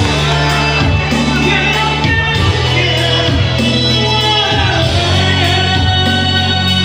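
Loud music with a singing voice over sustained bass notes.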